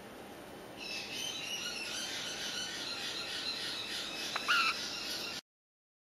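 Five-week-old yellow-shouldered Amazon parrot chick chirping: a run of high calls starting about a second in, with a louder squawk near the end. The sound cuts off suddenly.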